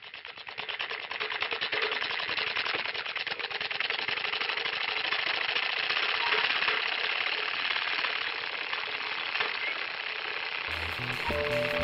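Film projector running, its mechanism clattering in a rapid, even rhythm that grows louder over the first couple of seconds. Music with low sustained notes comes in near the end.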